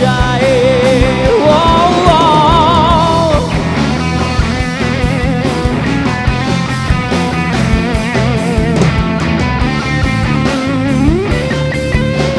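Rock band playing an electric guitar solo: held lead-guitar notes with vibrato, and a rising slide near the end, over drums and bass guitar.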